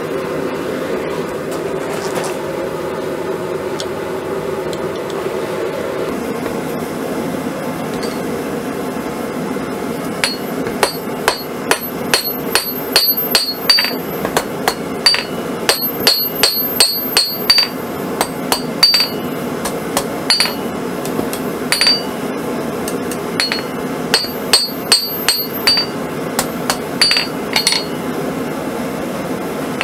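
Hand hammer striking hot 1/4-inch round steel bar on an anvil, each blow with a short metallic ring. The blows come in quick irregular runs starting about a third of the way in, over a steady hum that runs throughout.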